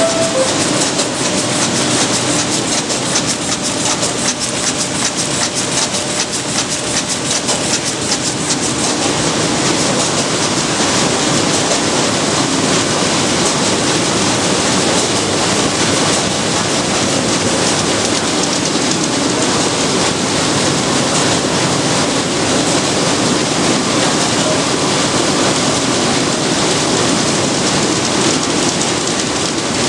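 Sheetfed offset printing press and its sheet-handling machinery running at speed: a loud, steady mechanical clatter with fast, even ticking.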